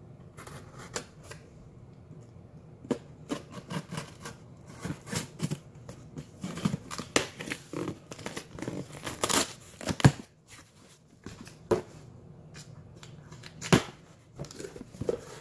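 Cardboard shipping box being cut open: a pointed tool scraping and slitting along the packing tape, tape tearing and cardboard rustling, with irregular sharp clicks and knocks, the loudest about ten seconds in.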